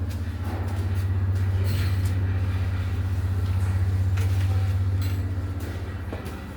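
Steady low machine hum with a fluttering beat in its loudness, and a few faint clicks and knocks over it.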